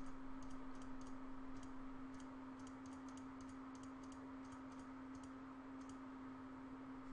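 Computer mouse button clicked in quick, irregular succession, about three or four faint clicks a second, while polygons are selected one after another. A steady low hum runs underneath.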